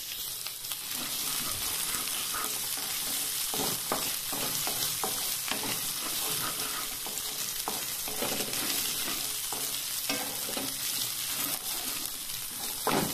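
Chopped capsicum, green chillies and onion frying in hot oil in a kadhai, with a steady sizzle. A wooden spatula scrapes and taps against the pan again and again as the vegetables are stirred.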